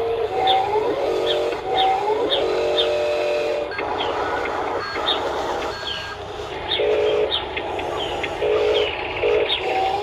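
Whine of the small electric drive motors and gearboxes of radio-controlled Huina toy construction vehicles, coming in short spurts, with the pitch gliding up now and then as a motor speeds up.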